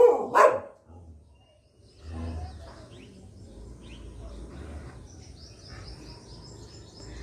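A bird chirping, with a quick run of repeated high chirps in the second half, over faint low background noise.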